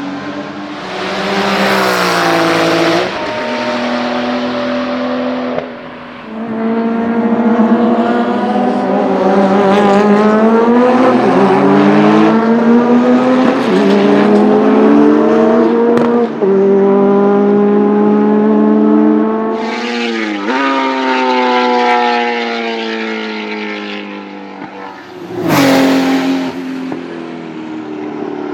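1979 Porsche 935 Kremer K3's 3.2-litre twin-turbo flat-six racing engine running hard on track, its pitch repeatedly climbing under acceleration and dropping sharply at gear changes and lifts. A short rush of broad noise comes about two seconds in and again near the end.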